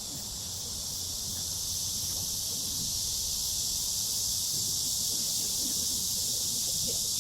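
Steady high-pitched chorus of insects buzzing, swelling a little over the first few seconds and then holding level.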